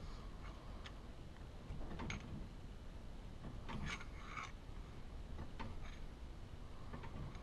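Light, irregular clicks and scrapes of a thin metal tool against the steel housing of a hot tapping machine as rope packing is pushed into the packing bore, with a small cluster of them about four seconds in.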